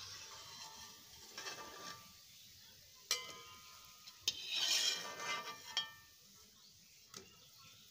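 Perforated steel skimmer clinking and scraping against a steel kadhai as fried gulab jamun are scooped out of the oil, with a few sharp metal clinks and a longer, louder scrape a little past four seconds in.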